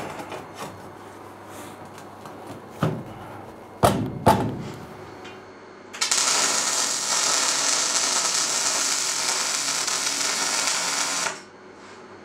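A few sharp metal knocks as the steel tube parts are positioned, then a MIG welding arc crackling and hissing steadily on the steel tube frame for about five seconds, cutting off abruptly as the seam is finished.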